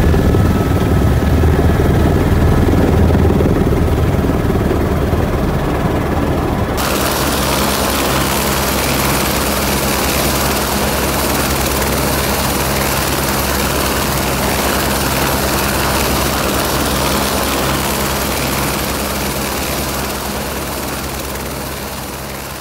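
Helicopter cabin noise, the engine and rotor heard from inside the cockpit on landing. About seven seconds in it cuts to a helicopter running steadily nearby, heard outdoors, which fades away near the end.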